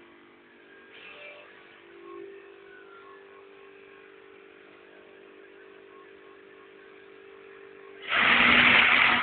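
Three-head hair wefting machine's motor humming faintly and steadily with light ticking. About eight seconds in, a much louder, harsh running noise starts abruptly.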